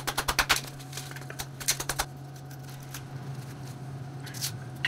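Hatchet chopping a thin stick of kindling at the lip of an offset smoker's steel firebox: a quick run of sharp taps and cracks in the first two seconds, then a few more knocks near the end as the kindling goes into the firebox.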